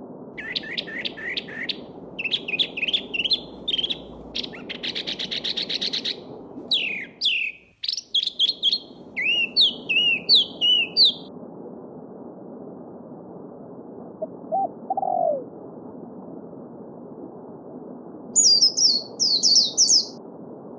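Songbirds singing in quick runs of chirps and trills over the steady rush of a babbling stream. The stream briefly cuts out about a third of the way in; after a lull comes a single lower falling call, and near the end a burst of very high chirps.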